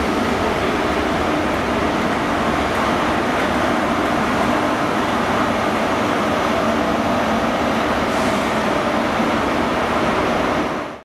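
GWR High Speed Train running past: a steady, loud rushing rumble of Mark 3 coach wheels on the rails, with a low hum from the Class 43 diesel power car at its rear.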